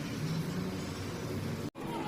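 Cummins X15 (ISX) inline-six diesel engine running steadily with a strange noise from the timing gear train, which the owner puts down to badly adjusted camshaft gears. The sound cuts out abruptly for an instant near the end.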